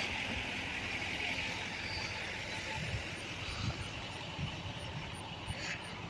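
Road vehicle noise, a steady hiss that fades away, with a few faint knocks.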